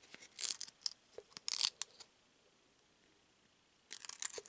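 Trading cards being slid off a stack held in the hand, making short papery swishes and clicks in two flurries, one in the first couple of seconds and one near the end, with a quiet pause between.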